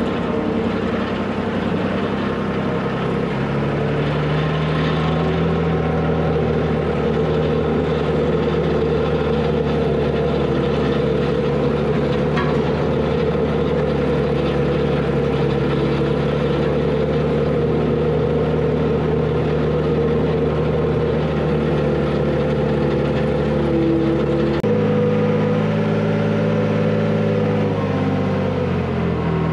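Heavy diesel engine running steadily. About 25 seconds in its pitch steps down, and near the end it slides lower as it slows.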